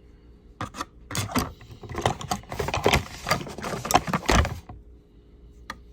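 Hard hand tools being handled: a quick run of sharp clicks and rattles, like tools knocking against each other and their case, lasting about four seconds and then stopping.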